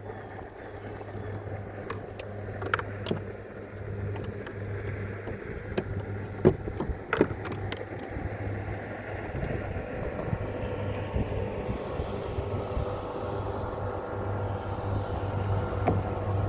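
Boat engine running steadily with a low hum, with a few sharp knocks and clunks in the first half. In the second half a higher engine tone rises and grows louder.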